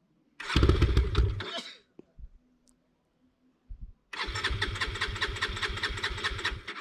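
Bajaj motorcycle engine being cranked by its starter in two tries: a short one near the start, then a longer rapid, even chugging of about ten strokes a second from about four seconds in. It turns over without catching, a failed cold start that the owner suspects may come from a kill switch fault.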